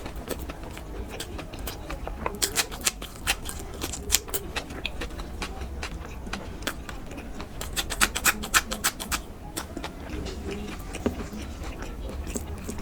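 A person chewing food, with crisp clicking crunches that come in two clusters, about two and a half seconds in and again around eight seconds in.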